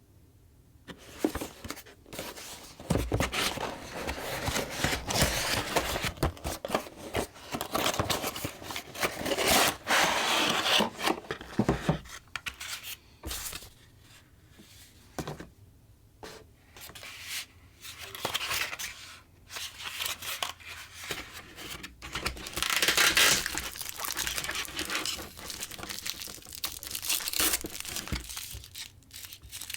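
Action-figure packaging being opened by hand: tearing and crinkling in irregular stop-start bursts, heaviest through the first third and again about 23 seconds in.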